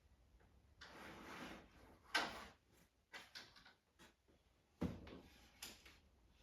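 A brief scrape or rustle, then several sharp knocks and small clicks of things being handled and set down, the loudest knock about two seconds in and another near five seconds.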